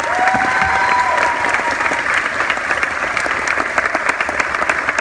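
Audience applauding: many hands clapping steadily for an award announcement at an animal show.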